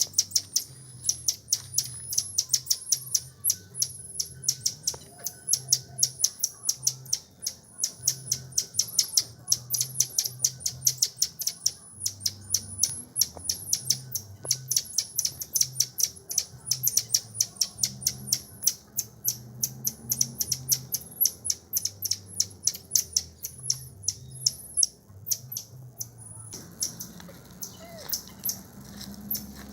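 An animal chirping: a long run of short, sharp, high-pitched calls, about three or four a second, that thins out and stops a few seconds before the end.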